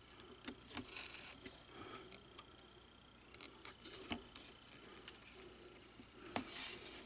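Hand-stitching leather with two needles: faint clicks and handling rustle, with thread pulled through the punched holes in a few short swishing draws, the longest about six seconds in.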